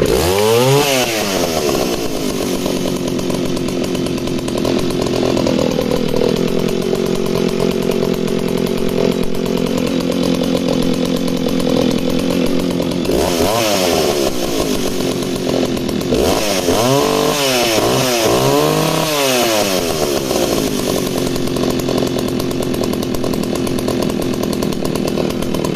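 1970s Alpina 90cc two-stroke chainsaw starting on the pull and running, its pitch dipping for a few seconds and then picking back up. In the second half it is revved several times in quick succession, going straight up and straight back down each time, then settles to a rock-steady idle.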